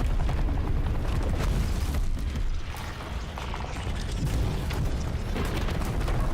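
Horror film soundtrack: a deep, steady rumble with rapid clicking and crackling over it.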